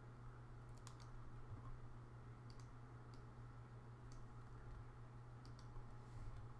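A few scattered, soft clicks of computer keys, some in quick pairs or threes, over a faint steady low hum.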